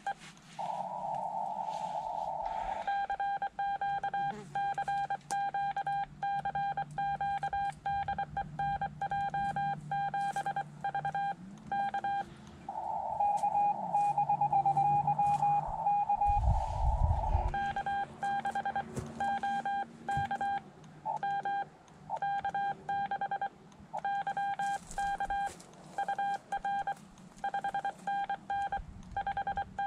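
Morse code on a Xiegu X5105 transceiver: a single beep tone keyed on and off in quick runs of dots and dashes. It breaks twice, about half a second in and again near the middle, into a few seconds of narrow-filtered receiver hiss.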